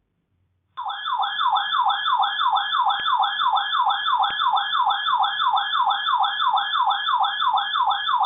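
Electronic warbling alert tone, a loud siren-like sweep repeating about three times a second, starting abruptly about a second in. It sounds between two broadcast flash flood warnings.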